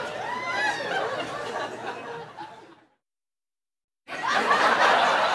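Laughter over a steady hiss, fading out a little under three seconds in; after about a second of silence, a louder noisy stretch cuts in abruptly.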